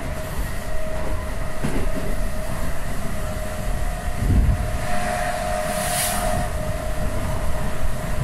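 Running noise heard inside a passenger car of an ÖBB class 4020 electric multiple unit on the move: a steady low rumble of wheels on rail with a thin steady whine over it. There is a heavier thump about four seconds in and a short hiss about six seconds in.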